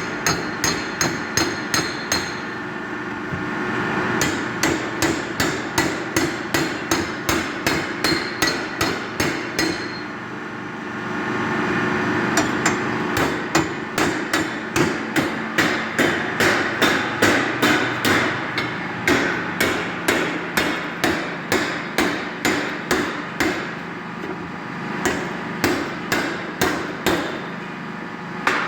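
A hammer striking metal in quick, steady blows, about two to three a second, with short breaks a few seconds in and about ten seconds in.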